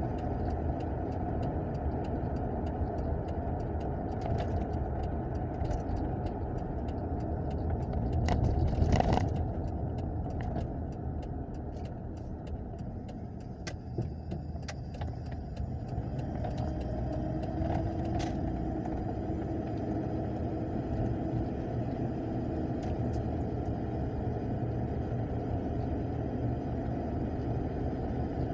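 Car cabin noise on the move: a steady low rumble of engine and road, briefly louder around eight to nine seconds in, with scattered light clicks and rattles.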